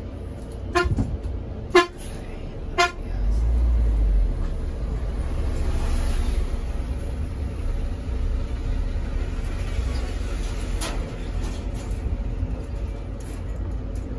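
Vehicle horn giving three short toots about a second apart, followed by the steady low rumble of the bus running on the road.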